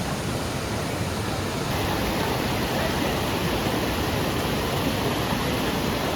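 Waterfall: a steady, loud rush of falling water. Its hiss turns brighter a little under two seconds in.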